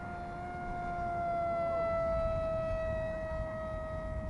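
Electric motor whine of a radio-controlled foam C-17 Globemaster III model plane flying overhead: one steady high tone that falls slightly in pitch and swells a little about halfway through.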